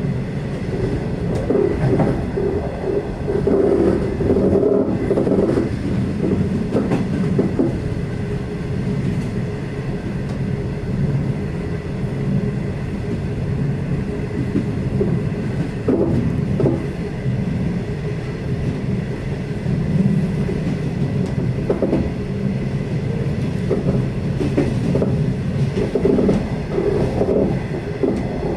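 V/Line loco-hauled passenger carriage running along the track: a steady rumble of wheels and bogies, with an occasional sharp click over the rails and a faint steady high whine.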